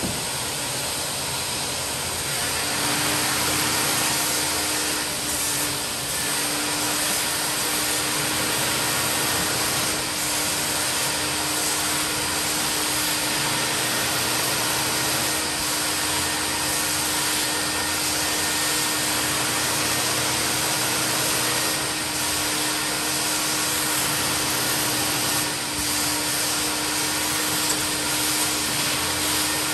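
Mytee Lite 8070 carpet extractor running steadily, its vacuum motor pulling shampoo and water back up through the wand from carpet floor mats. A steady low hum joins about three seconds in.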